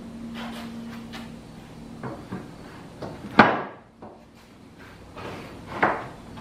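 Wooden 1x6 boards clattering and knocking as they are laid onto a wooden workbench frame and butted together, with light clatters and two sharp knocks, the louder about three and a half seconds in and another near the end.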